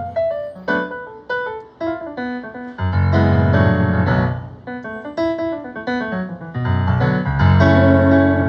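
Piano playing an instrumental passage: rapid runs of notes over repeated low chords, with no singing.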